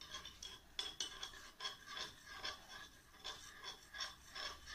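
Metal spoon stirring a milky mixture in a glass bowl, faintly scraping and clinking against the glass in irregular strokes about twice a second.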